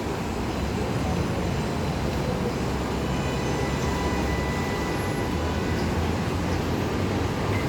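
New York subway train running on the elevated tracks: a steady rumble with faint high-pitched tones above it.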